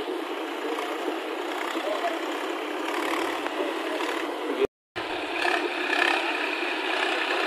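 Tractor engine running as the tractor drives through floodwater, under a steady noise of water washing around its wheels, with faint voices. The sound cuts out briefly about two-thirds of the way through.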